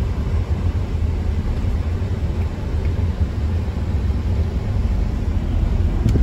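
Mack Titan semi truck's diesel engine running while the truck drives along, a steady low rumble.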